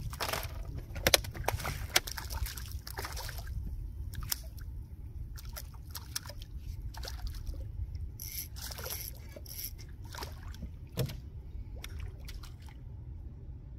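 A small hooked redfish (red drum) thrashing at the surface beside the canoe, throwing a run of irregular splashes. The splashes are loudest about one and two seconds in and stop near the end, over a steady low rumble.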